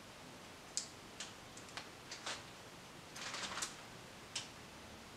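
Small plastic clicks and taps at irregular intervals, with a quick run of them about three seconds in, as a Playmobil toy wheel's plastic rim and hubcap are handled and pressed into its rubber tyre.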